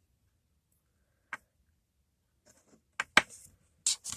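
A few short, sharp clicks: a single one about a second in, then several close together near the end.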